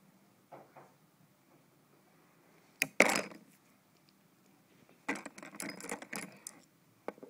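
A small metal nail tool being handled among nail brushes, clicking and clattering. There is a sharp snap about three seconds in, then a quick run of clicks and rattles about five to six and a half seconds in.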